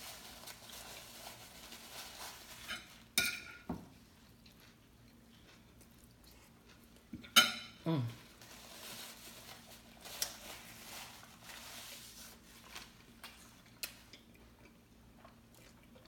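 A person eating a sub sandwich: quiet chewing and small handling sounds, with a few short clinks of tableware. The loudest clinks come about three seconds in and about seven and a half seconds in.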